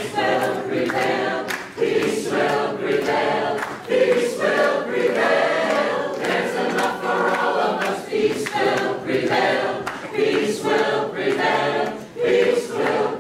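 A mixed choir of mostly women's voices singing a cappella, in phrases with brief breaks between them.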